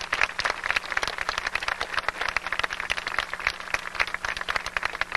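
Crowd applauding: many hands clapping densely and steadily.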